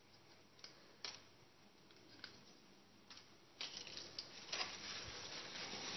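Faint handling noises of plastic ink-refill syringes: a few small clicks, then a steady soft rustle from about three and a half seconds in as they are moved over paper and a plastic bag.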